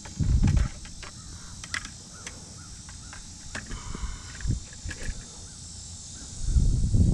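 Steady high insect drone with a few faint chirps and clicks, broken by loud low rumbling noise at the start and again from about six seconds in.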